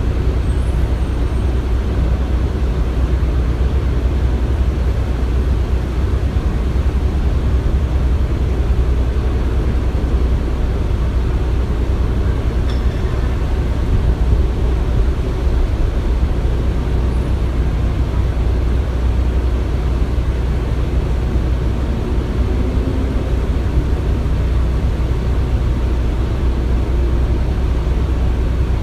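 Construction-site ambience: a steady, deep machinery rumble with an even wash of noise over it and no distinct impacts.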